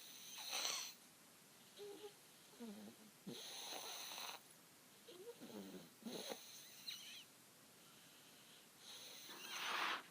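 Baby snoring: four snoring breaths about every two and a half to three seconds, with short throaty sounds between them.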